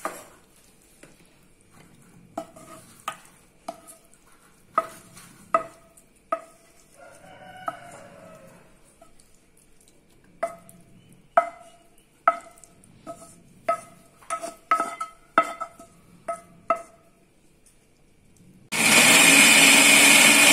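A metal spoon taps and scrapes cooked vegetables into a stainless-steel mixer-grinder jar, giving a string of short ringing clinks on the steel. About 19 seconds in, the electric mixer grinder starts and runs loud and steady, grinding the vegetables into a fine chutney paste.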